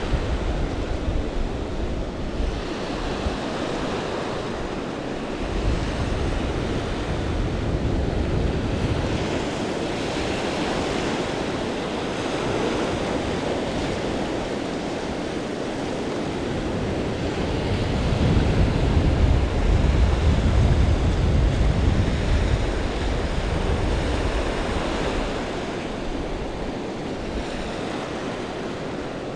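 Small ocean surf washing up the beach and drawing back, with wind buffeting the microphone. The wind rumble swells for a few seconds about two-thirds of the way through.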